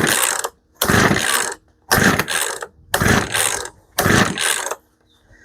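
Poulan P3314 chainsaw's recoil starter being pulled hard about five times, roughly once a second, each stroke a rasping whir of rope and ratchet. The two-stroke engine does not catch at half choke.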